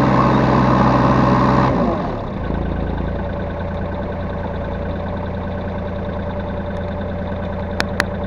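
Yanmar B3 Sigma mini excavator's diesel engine running, dropping from higher revs to a steady idle about two seconds in. Two sharp clicks come close together near the end.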